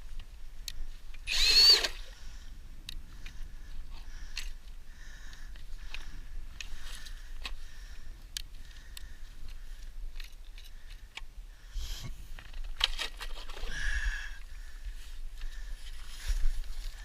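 Ridgid 18-volt brushless hammer drill spun up briefly about a second and a half in, with a rising whine. Scattered clicks and knocks and a faint on-and-off whine follow.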